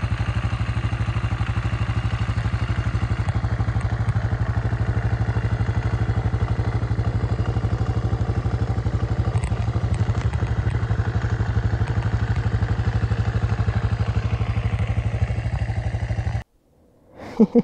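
Yamaha XT 600's single-cylinder four-stroke engine running steadily at an even pitch, with a fast pulsing beat. It cuts off suddenly near the end.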